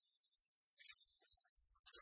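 Near silence, with faint, indistinct scattered blips.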